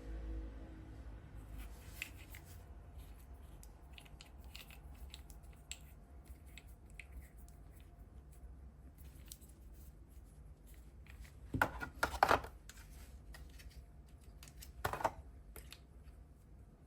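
Quiet handling noises: scattered small clicks and rustles, with a short cluster of louder clacks about twelve seconds in and another clack about fifteen seconds in.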